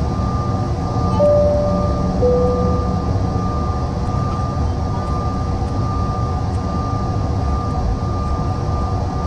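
Cabin noise of a Bombardier CRJ-900 taxiing: a steady low rumble with a thin, steady high whine from its rear-mounted GE CF34 turbofans. About a second in comes a two-note falling tone, each note lasting about a second.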